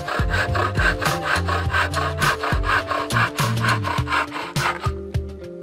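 Bow saw cutting through a wooden branch with quick, even back-and-forth strokes, stopping about five seconds in.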